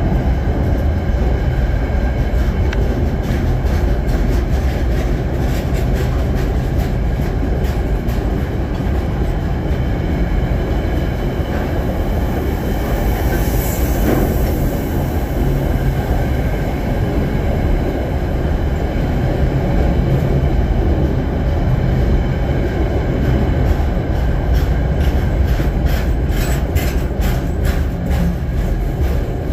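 Container wagons of a freight train rolling past: a steady, loud, heavy rumble with repeated clicks and clatter from the wheels on the rails, and a brief high-pitched squeal about halfway through.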